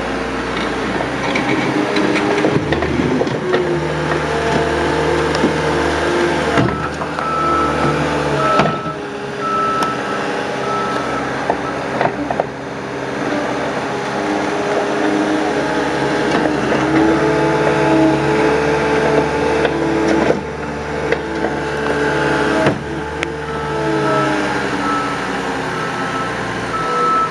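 Diesel engine of a heavy construction machine breaking up pavement, running and shifting in pitch as it works. A reversing alarm beeps in two stretches of a few seconds each.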